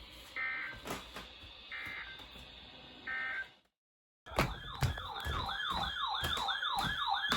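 Three short, screechy digital data bursts of an Emergency Alert System end-of-message signal on a NOAA Weather Radio broadcast, one about every second and a half. After a brief silence an electronic siren alarm starts up, a loud warble sweeping up and down about two to three times a second.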